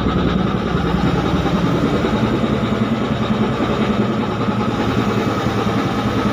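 A ship's diesel engine running steadily under way: a loud, even drone that does not change.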